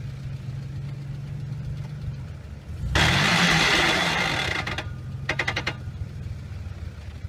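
Off-road 4x4 SUV engine running low and steady, then revved hard for under two seconds about three seconds in, with a loud rush of noise. A short rapid clatter follows a couple of seconds later as the truck sits stuck nose-up on the bank without traction.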